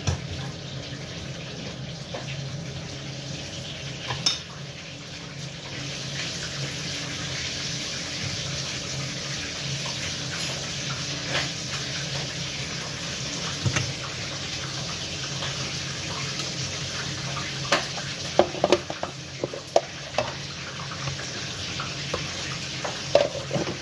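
Steady hiss of kitchen noise under a faint low hum, broken by a knock about four seconds in and several sharp clinks and knocks near the end.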